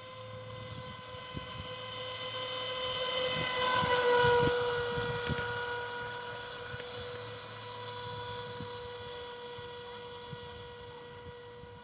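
Black Marlin RC speedboat's electric motor whining at a steady pitch as the boat runs past, growing louder to a peak about four seconds in, with a slight drop in pitch and a hiss as it goes by, then fading away.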